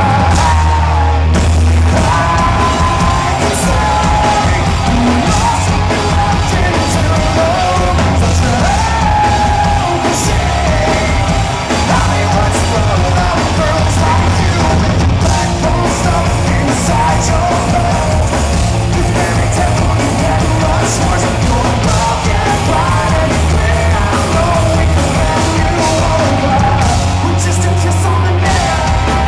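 Live rock band playing loud: electric guitar through Marshall amplifiers, bass and drums, with a male lead singer singing and shouting over them.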